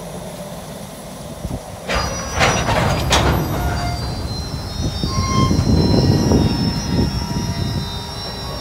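Freight train of open hopper cars rolling past on jointed track: a steady rumble of wheels and trucks, with sharp metallic clanks about two and three seconds in and faint high-pitched wheel squeal in the second half.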